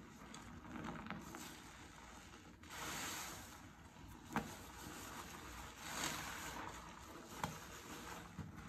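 A foam-soaked sponge squeezed and kneaded in a sink of soapy suds: soft squelching and fizzing of lather that swells twice, with two short clicks.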